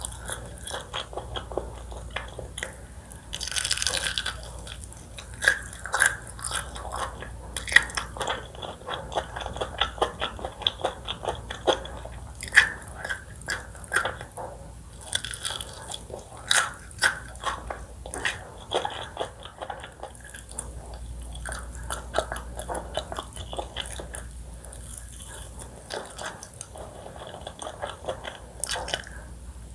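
Close-miked eating sounds: a person biting and chewing food, with many sharp crunchy clicks and wet chewing noises throughout, and a noisier burst lasting about a second near four seconds in.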